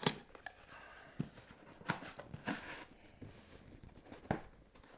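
Small cardboard accessory boxes being handled in a dense foam packing insert: a handful of light knocks and clicks with soft rubbing as a box is pushed into its foam slot.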